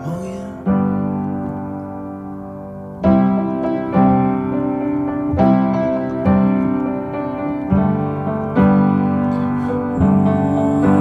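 Background music: a piano passage of chords struck every second or so and left to ring and fade, without singing.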